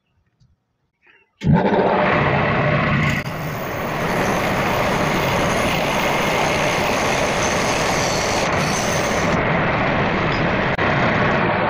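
Homemade wood lathe starting abruptly about a second and a half in, then running steadily, its spindle turning in pillow-block bearings as it spins a round wooden bowl blank.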